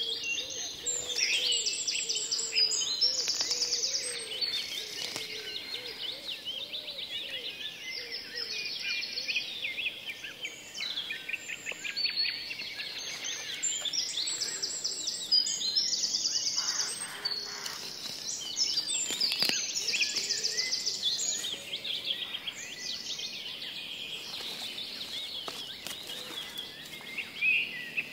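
Tropical forest wildlife chorus: many birds chirping and trilling at once, overlapping rapid trills and calls.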